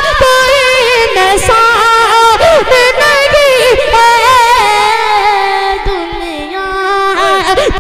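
A boy singing a naat into a microphone, drawing out long notes with a wavering pitch; the melody steps down and settles on a lower held note near the end.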